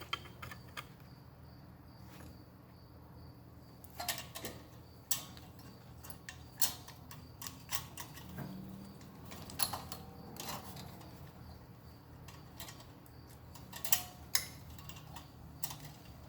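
Scattered clicks and light knocks of hands and tools working on a small engine's carburetor, taking off the throttle linkage and fuel line, at irregular intervals over a low steady hum.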